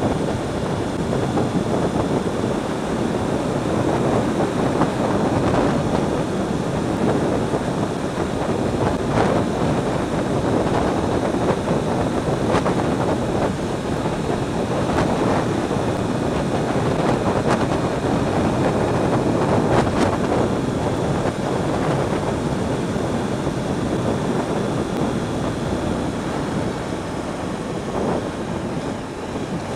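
Wind rushing over the microphone of a rider on a Yamaha R1 sport bike cruising at steady speed, with engine and road noise mixed underneath.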